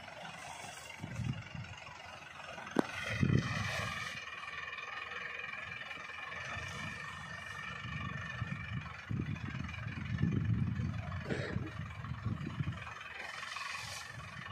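Farm tractor running as it drives over and flattens a standing banana crop: an uneven engine rumble with a steady whine over it from about three seconds in, and one sharp click just before.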